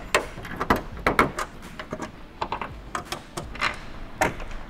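Irregular sharp clicks and knocks as the original screws are started by hand through the carbon fiber rear diffuser into the car's underside, with the panel tapping as it is handled.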